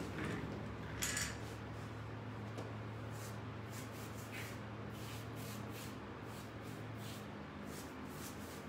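Paintbrush scrubbing yellow paint onto the textured side of a cabinet: soft, repeated swishing strokes, a slightly louder one about a second in, over a low steady hum.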